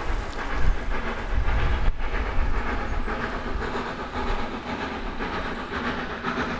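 Steam locomotive approaching from a distance on a preserved railway, its exhaust and running gear heard as a continuous rumble and hiss.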